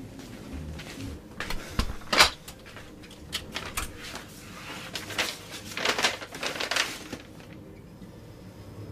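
Irregular clicks and knocks in a small room, bunched around two seconds in, again around three and a half seconds in, and between five and seven seconds in.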